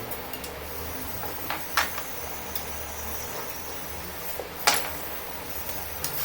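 A few sharp clicks and knocks over a low steady hum, two of them louder, about two seconds in and near the end.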